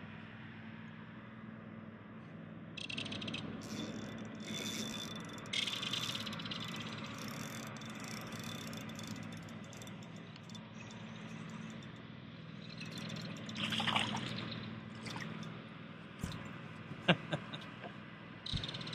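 Water splashing as a hooked yellow bass is fought on rod and line and lifted from the lake, over a low steady hum. A few sharp clicks near the end.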